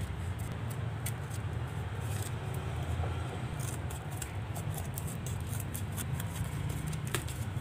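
Small scissors snipping through corrugated cardboard: a run of short crisp cuts, more frequent from about three and a half seconds in, over a steady low rumble.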